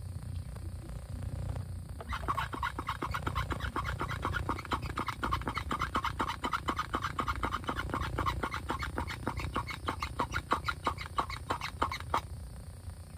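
Hand-operated vacuum brake bleeder pump worked in rapid, repeated strokes for about ten seconds, drawing brake fluid and air out through an open caliper bleeder valve. It starts about two seconds in and stops abruptly about a second before the end.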